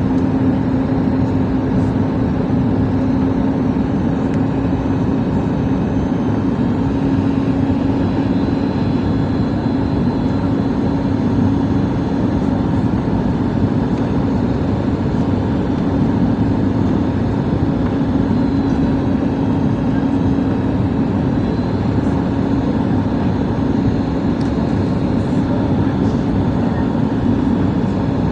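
Steady engine and airflow noise of a Boeing 737 MAX airliner in flight, with a constant low hum and no changes.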